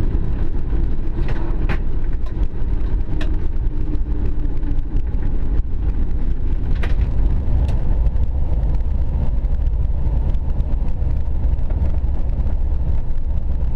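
Steady low rumble inside an Airbus A380 cockpit, the noise of the airliner's engines and its movement, with a few faint clicks scattered through it.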